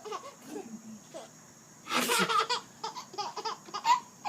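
A fake sneeze about two seconds in, a sharp hissing burst, followed by a run of short bursts of laughter.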